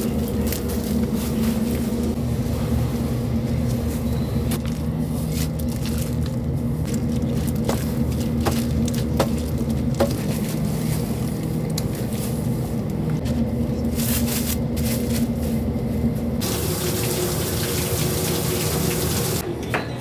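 Tap water running steadily over a tray of cut raw chicken thighs, over a steady low hum, with a few light knocks about halfway through. The water turns brighter and hissier about sixteen seconds in.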